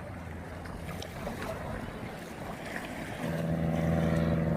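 An engine running with a steady hum, growing louder about three seconds in.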